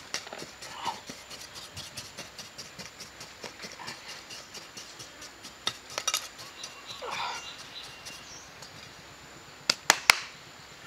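Bare hands scraping and scooping loose sandy soil, a string of small scuffs and clicks, with three sharp clicks in quick succession about ten seconds in.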